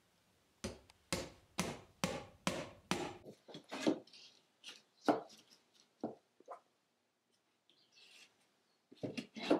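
Hammer driving wooden wedges to lock board siding panels in place: six quick strikes, about two a second. Then scattered lighter wooden knocks and a scrape as loose boards are handled against the wall, with a quick run of knocks near the end.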